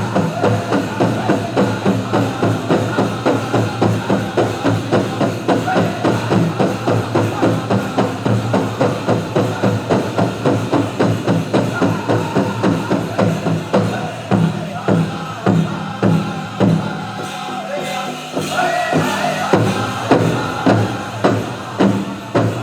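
Powwow drum group singing a chicken dance contest song, beating a steady rhythm of about two to three strikes a second on a big drum under high group singing. About 17 seconds in the drumbeat breaks off briefly, then comes back.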